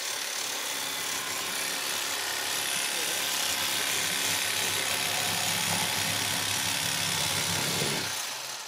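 Electric fillet knife running with a steady buzz as its blades cut along a bass fillet, stopping shortly before the end.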